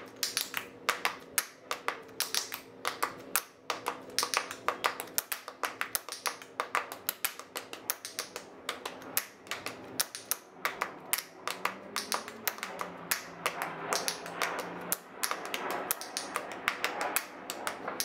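Tap shoes striking a hard floor in a quick, uneven rhythm of sharp taps, several a second.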